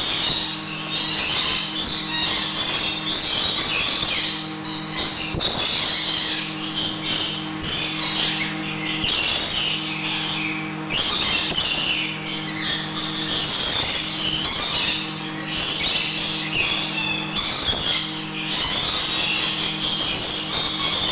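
A group of lorikeets chattering and screeching continuously in a dense, overlapping jumble of high-pitched calls, over a steady low hum.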